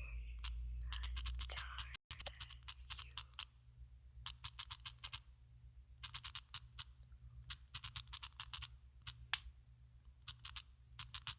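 Typing on a phone's touchscreen keyboard: runs of quick, light key clicks, several a second, broken by short pauses between words.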